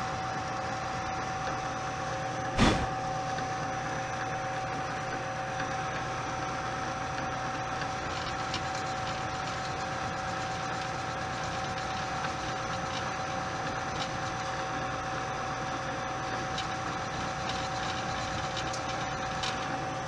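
Milling machine spindle running slowly on a variable-frequency drive with a steady whine, its end mill cutting into a soft metal tab of a computer case. The cutter runs wobbly, which the owner puts down to cheap collets and a cheap end mill. A single sharp knock comes about two and a half seconds in.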